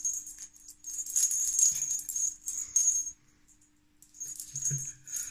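A pineapple conure playing with a toy ball, which rattles in bursts with a high ringing, pausing for about a second past the middle.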